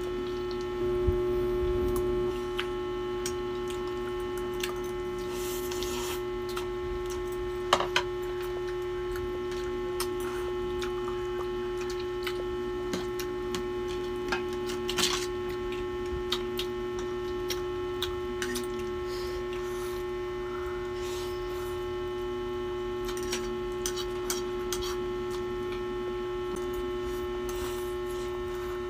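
A steady electrical hum runs throughout, with scattered light clicks of forks against plates while people eat noodles.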